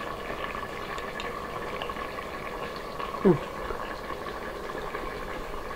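Quiet kitchen room tone with a steady faint hum. About three seconds in there is one short voice sound that falls in pitch.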